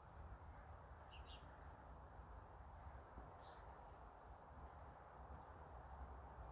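Near silence: a faint steady low background rumble, with a few brief, faint high bird chirps about a second in and again around three seconds in.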